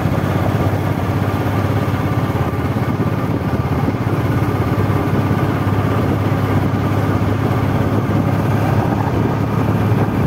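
A vehicle's engine running steadily as it drives along the road, with a constant low hum that does not change throughout.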